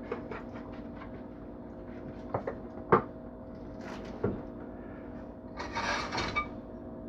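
Light clicks and knocks of kitchen items being handled, the sharpest about three seconds in, then a brief rustling scrape near the end, over a steady hum.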